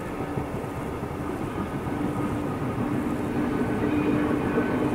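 Distant diesel train running along the valley: a steady engine drone with a held hum that grows gradually louder as it approaches.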